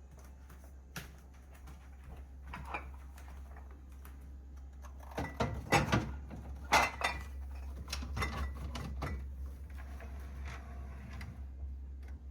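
Plastic fridge liners and refrigerator shelves being handled and set in place: scattered knocks and clatters, the loudest cluster about halfway through, over a steady low hum.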